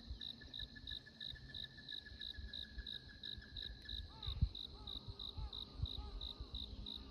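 Ruddy-breasted crake singing: a rapid trill sliding slowly down in pitch, then a fresh series of separate, arching notes that come a little faster. An insect chirps steadily in pulses, about three a second, and there is a low thump about four seconds in.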